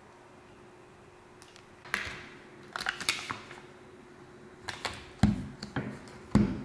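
Clicks and knocks of objects being handled and set down on a hard tabletop, beginning about two seconds in, with two heavier thumps near the end.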